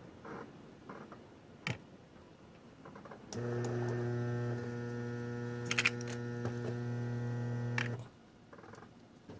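A mains-powered tool running with a steady electrical hum for about four and a half seconds, switched on a few seconds in and off near the end, with a few small clicks around it.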